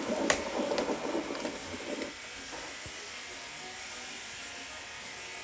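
Muffled film soundtrack from a CRT television's speaker cuts off abruptly about two seconds in, as the VHS playback drops to the VCR's blue screen. What remains is a faint steady hiss.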